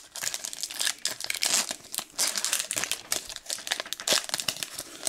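Foil wrapper of a Pokémon XY Furious Fists booster pack crinkling and tearing as it is pulled open by hand, a dense run of sharp, irregular crackles.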